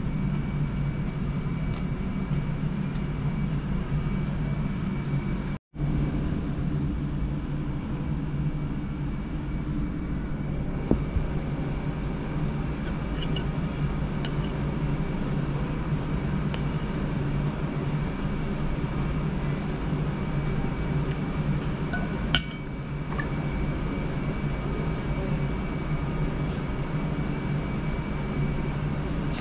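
Steady low hum of a café's room tone, with a few sharp clinks of metal cutlery on a china plate, one a little after ten seconds in and a louder one about two-thirds through. The sound drops out for an instant near six seconds in.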